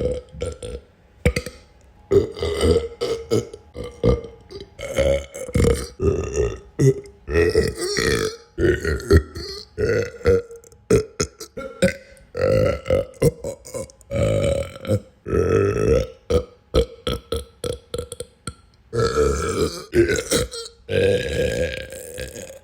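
Human burps, one after another with short gaps, some brief and some drawn out for about a second.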